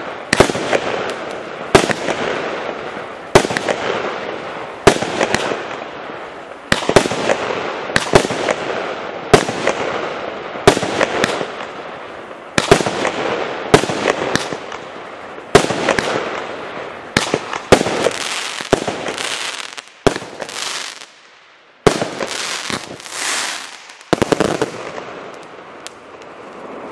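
25 mm consumer fireworks cake firing shot after shot, about one every one and a half seconds, each sharp bang followed by a fading crackle from the bursting stars. The shots stop about two and a half seconds before the end.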